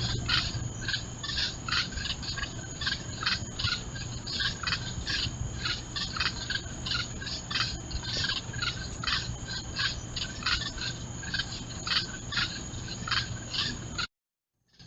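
Chorus of night insects such as crickets: many quick, irregular chirps over a steady high-pitched buzz, with a low steady hum beneath, recorded through a trail camera's microphone. It cuts off abruptly shortly before the end.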